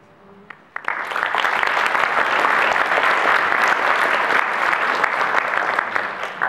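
Audience applauding: a sudden swell of many hands clapping about a second in, held steady, then tapering off near the end.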